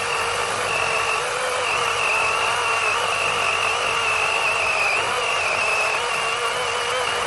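DeWalt 20V XR brushless battery chainsaw running at full speed as its chain cuts through a log, a steady high motor whine whose pitch wavers slightly.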